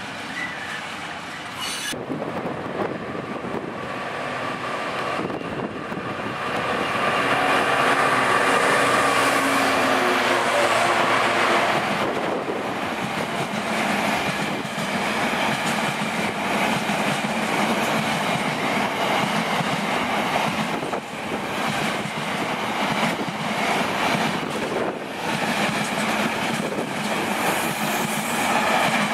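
Freightliner Heavy Haul coal hopper wagons rolling past at close range, a steady rumble with the clatter of wheels over rail joints.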